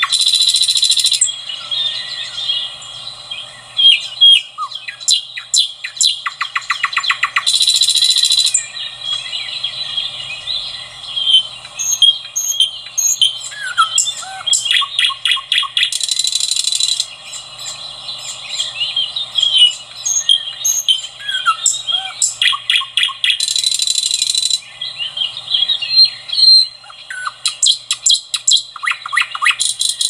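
Common nightingale singing a varied song: rapid series of clicking notes and trills, short whistled slurs, and loud buzzy phrases about a second long that come back every several seconds.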